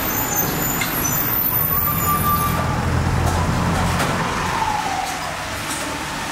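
Road traffic: a motor vehicle's engine rumble swells over the first few seconds and then fades, with a faint falling whine as it passes.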